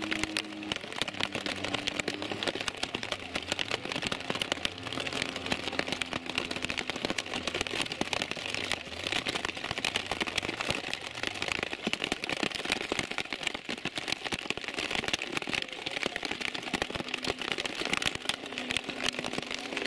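Heavy rain with a dense crackle of drops, over race car engines running in the distance, their pitch rising and falling repeatedly as they accelerate and shift on a wet track.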